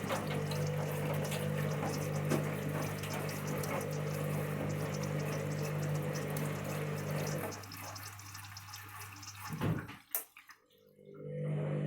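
Washing machine running mid-cycle: water rushing through the machine over a steady electrical hum. Near the end the hum and water cut out for about a second, with a few clicks, then start again.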